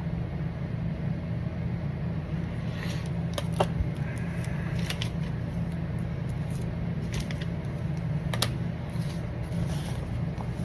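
Steady low background hum with a few short clicks and crinkles of trading cards and their plastic holders being handled, scattered through the middle of the stretch.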